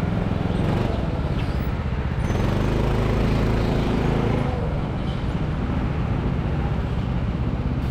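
Go-kart motor running at low speed as the kart rolls slowly through the pit lane into the box, a steady low hum whose note lifts a little for a couple of seconds in the middle.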